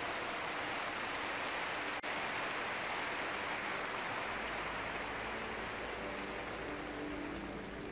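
Steady wash of noise from a huge arena crowd getting up and moving forward. Faint sustained music begins to come in under it about five seconds in.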